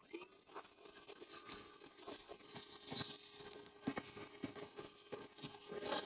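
Irregular scraping, rustling and light knocks of hands working among the parts inside an open Luxaire gas furnace cabinet, over a faint steady hum.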